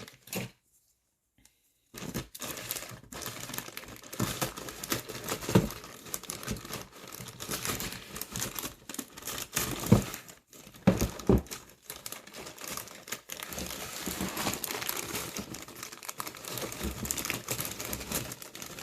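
Plastic bags holding model-kit parts crinkling and rustling as they are handled, starting about two seconds in and going on continuously, with a few dull knocks.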